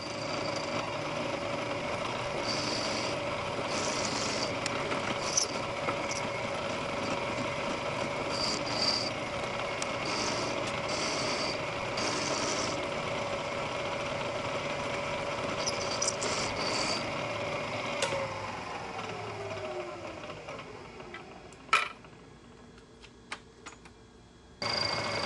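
Milling machine running with an end mill making finishing passes: a steady hum with short high-pitched squeals coming and going. About eighteen seconds in the spindle is switched off and spins down, its pitch falling away until the machine goes quiet.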